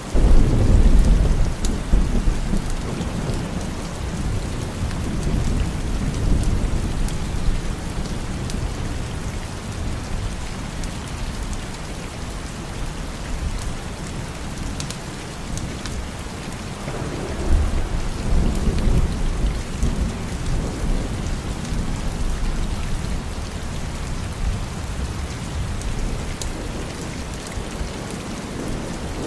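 Steady rain falling, with low rolls of thunder: one swelling right at the start and fading over a few seconds, another a little past halfway.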